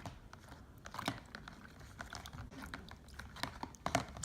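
Irregular small clicks and taps of a fidget spinner being handled and worked while it is cleaned in soapy water, with louder knocks about a second in and near the end.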